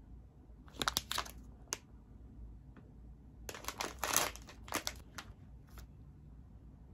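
Plastic candy pouch crinkling as it is handled, then torn open across the top, with the longest, loudest rip about three and a half to four seconds in and a few more crinkles after.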